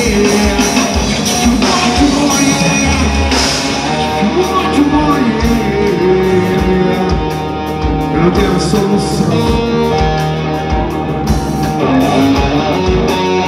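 Live rock band playing through a large outdoor PA: distorted electric guitar and drums with a singer.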